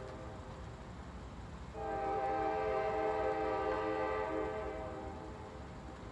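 Air horn of an approaching Norfolk Southern freight locomotive, heard from a distance: the end of one long blast dies away at the start, then a second long blast sounds for about three and a half seconds from about two seconds in.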